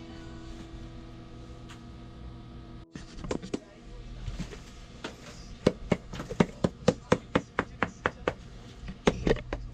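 Background music with held tones, which cuts off about three seconds in. Then comes a run of sharp knocks or taps, roughly two a second and unevenly spaced, over a low hum.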